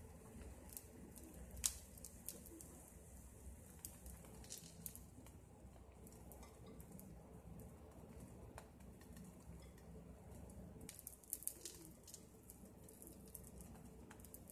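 Near silence: faint hiss from an egg omelette cooking in a nonstick frying pan, with scattered light clicks and taps as bread cubes are set onto it, a short cluster of them about eleven seconds in.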